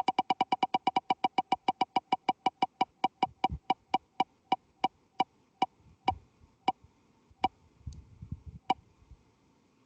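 Spinning name-picker wheel's tick sound effect: a fast run of pitched clicks, about eight a second, that steadily slow down as the wheel loses speed, the last tick coming about nine seconds in as it stops on a name.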